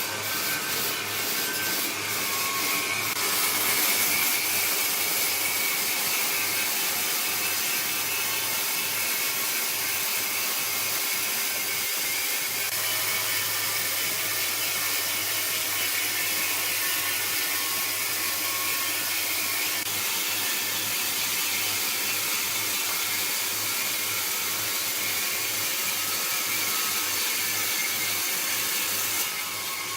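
Sawmill saw cutting through a log of red wood: a steady, loud hissing rasp over a constant machine hum, with a change about three seconds in and a drop in level near the end.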